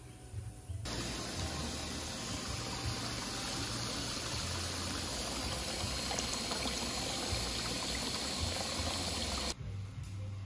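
Water running from a faucet into a plastic-lined pedicure foot basin, pouring and splashing around the feet. It starts abruptly about a second in and cuts off abruptly about a second before the end.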